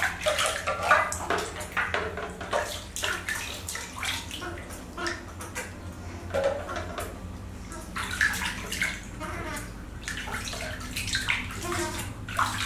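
Water splashing and sloshing in a plastic basin as hands scoop and pour water over a bathing baby monkey, in quick irregular splashes.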